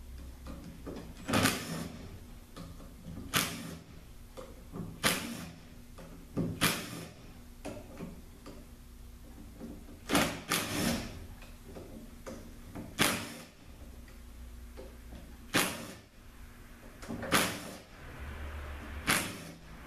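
DeWalt cordless driver whirring in about ten short bursts, one every couple of seconds, each backing a bolt out of a 48RE automatic transmission valve body.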